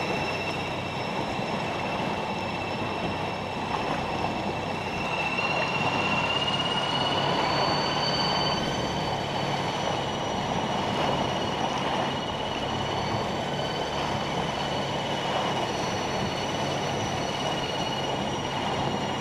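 Electric outboard motor pushing an inflatable boat along at steady speed: a thin high whine that rises slightly in pitch about six seconds in, over a steady rush of water and wind.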